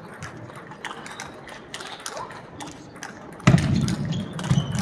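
Table tennis rally: the ball clicks off the rackets and the table about twice a second. About three and a half seconds in, a sudden much louder thump and low rumble sets in and continues.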